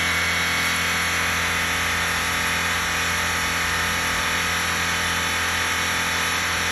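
20 kW electric outboard motor running steadily: an even, unchanging whirr.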